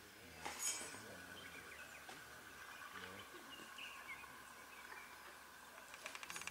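Faint bush ambience with scattered short bird chirps and a thin steady tone. A brief click comes about half a second in, and a fast rattling trill starts near the end.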